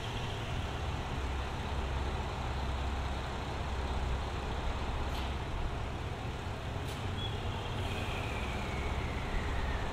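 Diesel railcar engine running with a steady low rumble as the KiRo 185 train starts to pull away. There are two sharp clicks midway, and a faint whine falling in pitch near the end.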